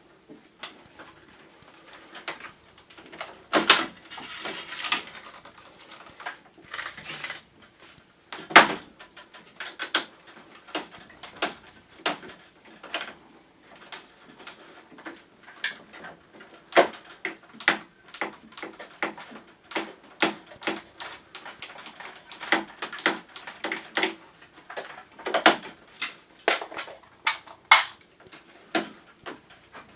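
Irregular clicks, taps and knocks of plastic covers and parts being handled and unclipped while a Panasonic Eolia wall-mounted air conditioner is taken apart, with a few louder knocks and short scrapes among them.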